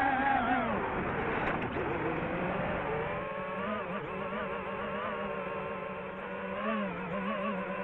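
DJI FPV drone's motors and propellers whining at high RPM. The whine is a stack of pitches that falls over the first second or so as throttle comes off, then holds lower with a quick up-and-down waver, with a brief rise about seven seconds in.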